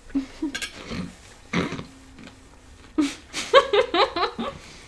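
A woman's embarrassed laughter in short bursts, breaking into a quick run of giggles about three seconds in.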